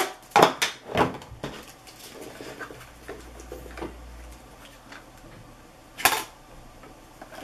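Hard plastic knocks and clatter as an FPV monitor module is lifted from its packaging and handled, with several sharp clicks in the first second, then quieter handling. A single sharp snap about six seconds in as its fold-up sunshade is opened.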